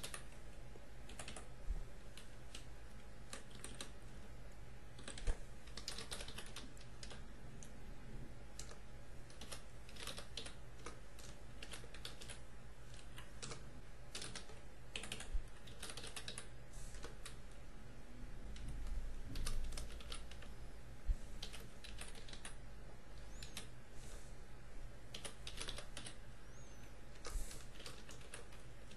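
Typing on a computer keyboard: irregular clusters of keystroke clicks with short pauses, a few keys struck harder. A steady low hum runs underneath.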